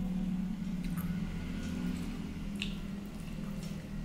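Close-miked eating by hand: wet squishes of rice and curry being mixed with the fingers on a steel plate, with chewing and a few sharp mouth clicks or smacks, over a steady low hum.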